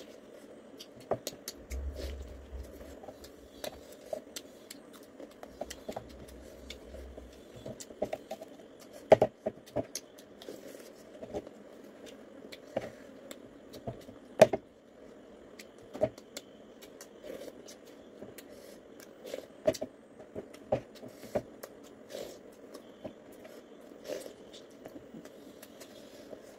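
Close-up eating by hand: chewing and mouth clicks on roast pork, with fingers scraping and tapping food against a plate and bowl, giving scattered sharp clicks over a steady low hum.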